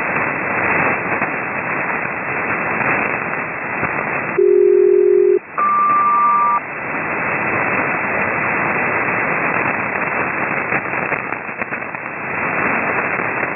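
Aviation HF SELCAL tones received over upper-sideband shortwave: about four seconds in, a pair of low tones sounds together for about a second, then after a brief gap a higher pair for about a second, the code CD-MQ sent to check an aircraft's selective-calling alert. Around them, steady band hiss with static crackle from thunderstorms.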